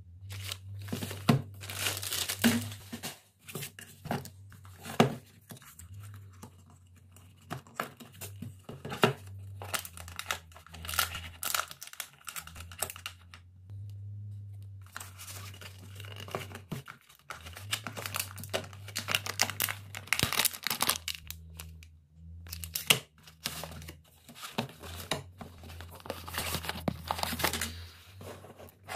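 Clear plastic wrapping crinkling and tearing in irregular bursts as an action camera's cardboard box is unwrapped and handled, with a few sharper knocks. A low hum sits underneath.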